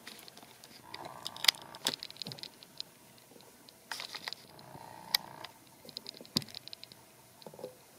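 Small plastic wire connectors and their leads being handled against a circuit board: light clicks and rattles, in short scattered clusters.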